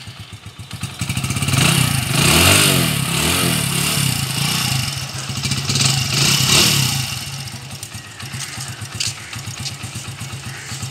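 Hero HF Deluxe motorcycle's single-cylinder four-stroke engine running and revved twice, about two seconds in and again around six seconds, then settling back to an even pulsing idle, run so that the source of an engine noise can be checked.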